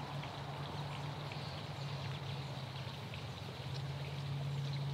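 Steady background hiss with a low, steady hum running under it.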